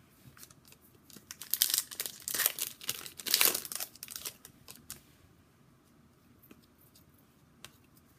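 A hockey card pack's wrapper crinkling and tearing open, loudest in three rustling surges over a few seconds, followed by a few light clicks as the cards are handled.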